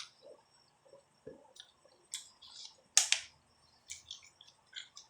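Close-up eating sounds: a series of sharp, wet mouth clicks and smacks, the loudest about three seconds in.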